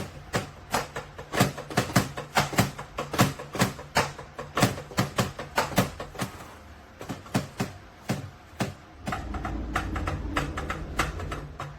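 Drumsticks striking the pads of a Donner DED-200 electronic drum kit in a quick run of hits, several a second. A low rumble joins about three-quarters of the way through.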